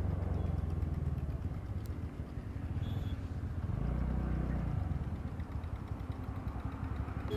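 TVS Ntorq 125 scooter's single-cylinder engine running at low revs as the scooter rolls slowly up to a stop, the engine note swelling briefly about four seconds in.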